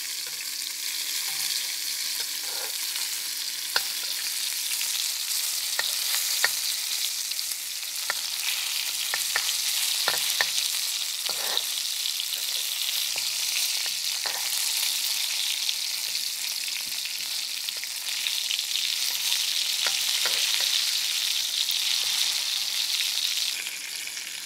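Battered cod pieces sizzling in hot oil in a stainless steel wok: a steady hiss that grows louder partway through and drops back just before the end. Now and then a metal spatula and spoon click and scrape against the wok as the pieces are turned.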